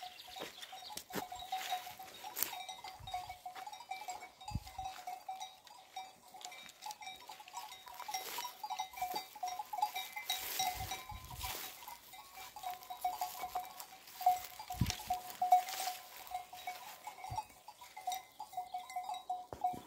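A grazing flock of sheep, with bells on the flock clinking almost continuously and scattered sharp clicks.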